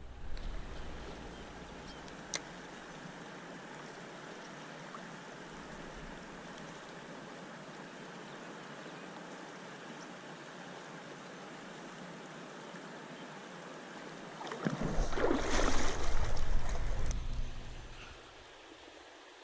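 River water running steadily over a shallow riffle. A louder rush of noise rises for about three seconds near the end, then dies away.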